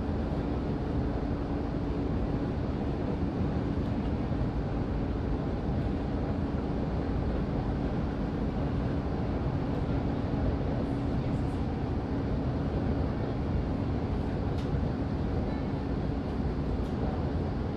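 Steady running noise of a passenger train heard from inside the carriage at speed, with a constant low hum under the rumble of wheels on rail.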